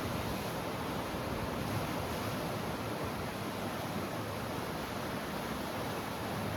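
Sea surf washing steadily on the shore, an even rushing noise with no single wave breaking out above the rest.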